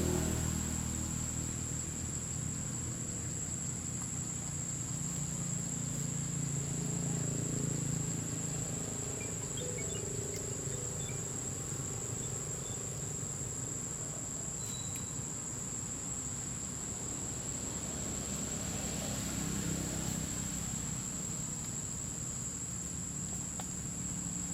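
A steady, high-pitched insect drone, with a low rumble underneath that swells a little twice.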